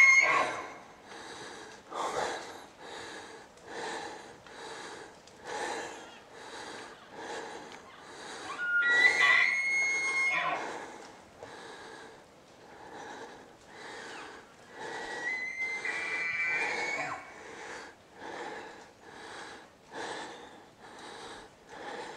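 Bull elk bugling: a high whistling call that cuts off right at the start, a rising whistle about nine seconds in, and another whistle with broken, stepped notes around fifteen to seventeen seconds in. Under them runs fast, heavy breathing close to the microphone, a bit more than one breath a second.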